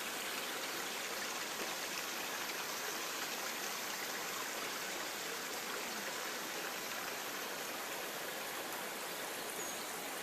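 Steady rushing of water, an even hiss with no engine hum beneath it.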